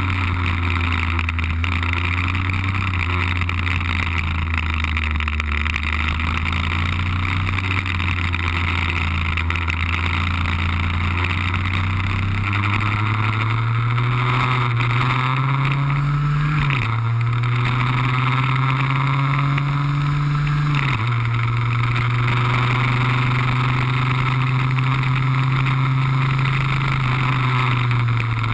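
Lambretta scooter's RB20 two-stroke engine heard from onboard, running hard on track. Its note holds steady, then climbs and drops sharply twice in the second half, as at gear changes, over a steady rushing hiss.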